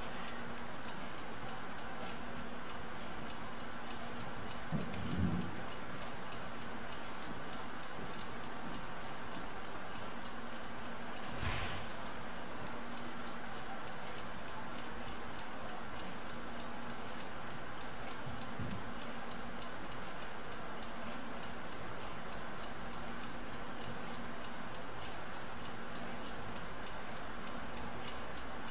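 Mechanical laboratory stopclock ticking steadily and rapidly as it times the run, with a faint background hum and a couple of soft knocks.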